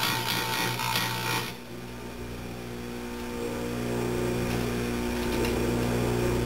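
An Oregon heavy-duty chain grinder's wheel grinding a chainsaw cutter tooth: a gritty, hissing grind that stops about a second and a half in. The grinder motor keeps running with a steady hum, which grows louder over the next couple of seconds.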